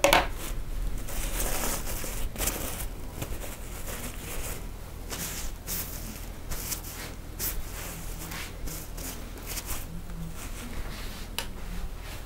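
Short, irregular scraping strokes of a barber's straight razor shaving a man's beard stubble, with light rustling.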